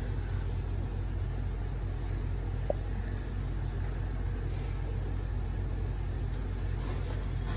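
Steady low background rumble, with one brief click a little under three seconds in. Near the end comes a soft hiss of noodles being slurped off a fork.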